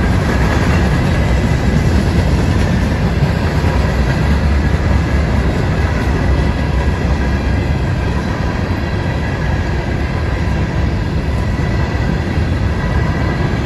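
CSX freight train's hopper cars rolling past: a steady, continuous rumble of steel wheels on the rails.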